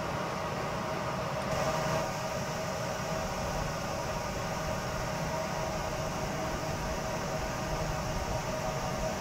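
Steady distant rail-line and town ambience: an even rumble and hiss with a constant tone through it, as a JR West 321 series electric commuter train approaches far off.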